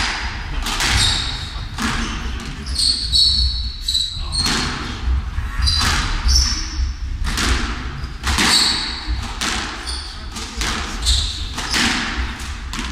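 A squash rally: the ball cracks off racquets and the court walls again and again, about once a second, with short high shoe squeaks on the hardwood floor between shots, all echoing in the enclosed court.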